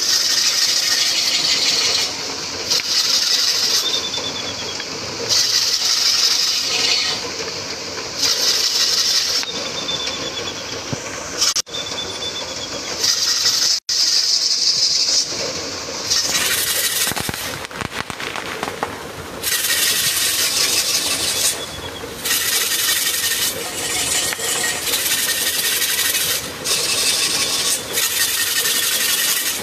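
The bull-race rig's wooden beam and spoked wheel grinding and creaking around the central pivot as a yoked pair of bulls circles the track. A rasping surge comes about every two to three seconds, then faster in the second half, with a few short high squeaks.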